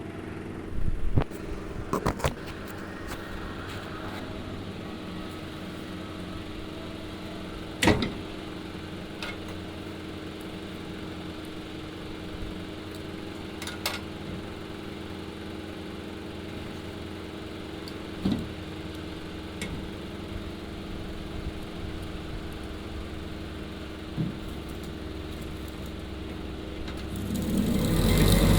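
A steady low hum with a few sharp clicks and knocks scattered through it; the hum swells near the end.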